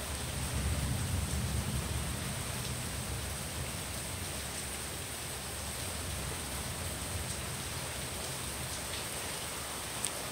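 Steady tropical rain hissing down, with a low rumble of distant thunder that swells at the start and fades away over the next several seconds. A few single drops tick sharply, the loudest near the end.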